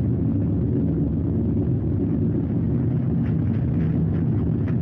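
Mitsubishi Fuso Aero Star city bus (2PG-MP38FK) heard from inside the cabin while driving: its six-cylinder diesel engine running steadily, a low drone with road noise. A few faint ticks come in during the last couple of seconds.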